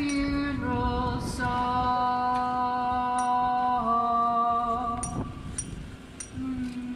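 A woman singing unaccompanied, holding long, steady notes. The singing dips about five seconds in, then one more long note is held to the end.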